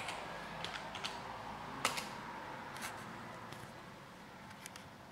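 Computer keyboard keys clicking: about seven separate keystrokes, the sharpest about two seconds in, over a steady background hum.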